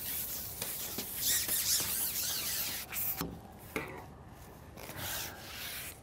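Rubbing and scraping as a carbon fishing pole is slid through the hands, loudest over the first three seconds, with two short knocks a little after three seconds and fainter rubbing near the end.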